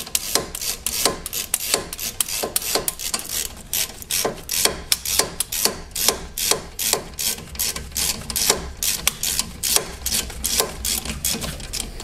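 Hand ratchet clicking in quick, uneven runs as it backs out a loosened front brake caliper guide bolt on a 2013 Hyundai Sonata.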